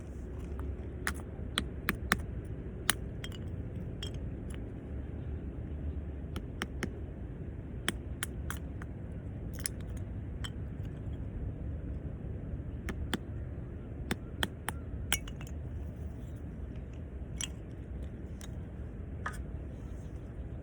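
Irregular sharp clicks and clinks, about one or two a second, over a steady low rumble.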